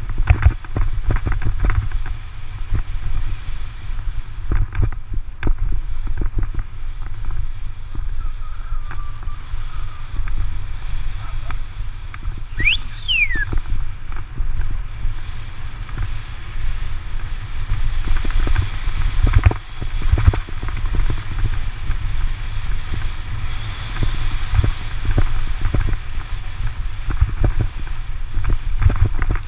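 Wind rumble on the microphone and constant knocking and rattling of a mounted action camera jolting over a rough gravel dirt road, with one brief high squeak about halfway through.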